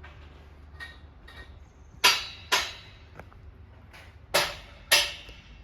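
Four sharp cracks in two pairs, each pair about half a second apart, over a low steady hum.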